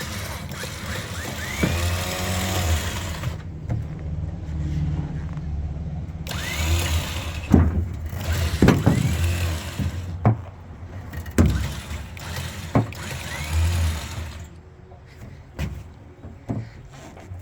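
A 9,000 lb Badlands electric winch pulling a lathe, run in several short stretches, each starting with a rising whine as the motor spins up. Sharp knocks come between the runs.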